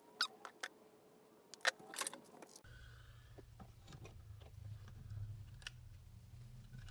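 Small sharp clicks and taps of small plastic and metal parts being handled and fitted into a dashboard wiper-switch mechanism: several in the first couple of seconds, then fainter ticks over a steady low hum that comes in about two and a half seconds in.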